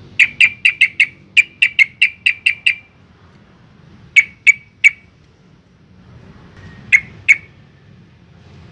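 Yellow-vented bulbul (trucukan) calling in a rapid run of about a dozen sharp, clipped notes, then a group of three and a pair, the chattering 'ropel' series used as a lure call.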